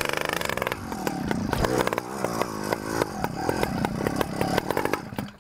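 Exhaustless 100cc petrol bicycle engine running at full throttle. Its note holds steady at first, then about a second in the revs start rising and falling, with many sharp clicks over it.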